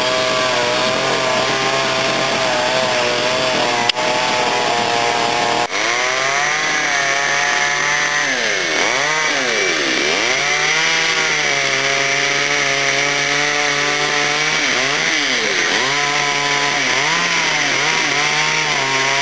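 Chainsaws carving wood, their engines running at high speed. The pitch dips and climbs back several times as the throttle is eased off and opened again.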